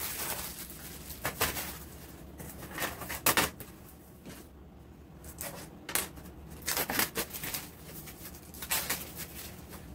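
Clear plastic packaging crinkling as it is handled, with scattered sharp clicks and knocks of items being picked up and set down on a table.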